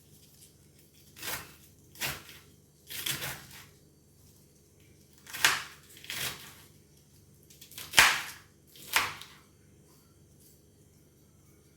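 Kitchen handling noises: about seven short, irregular knocks and rustles, a second or two apart, over a faint steady hum.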